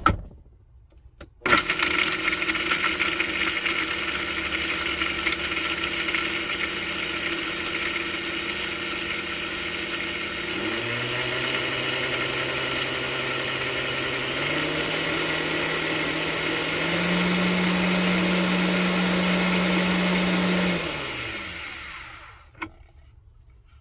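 Electric blender grinding coconut shreds and chia seeds into powder. The motor starts with a jolt, steps up in speed three times, then is switched off and winds down.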